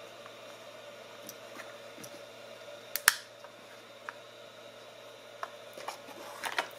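Hands handling a plastic jar lid with a small speaker pressed into it: a few sharp clicks and taps, the loudest about three seconds in, and a short burst of clicking and rustling near the end, over a steady faint hiss.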